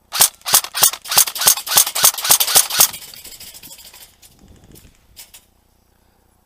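Airsoft gun firing a quick string of about a dozen sharp shots, roughly four a second, stopping about three seconds in, with a few faint clicks after.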